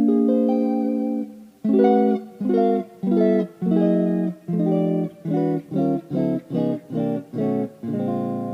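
Fernandes FST-50, a Stratocaster-style electric guitar, being played: a held chord, then a run of short, cut-off chords coming faster and faster, ending on a chord left to ring.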